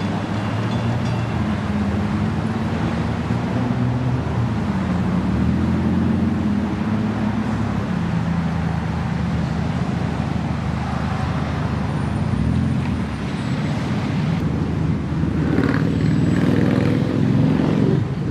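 Road traffic driving past close by, cars and a pickup going by one after another with shifting engine tones, over the steady rumble of a freight train rolling on the tracks behind.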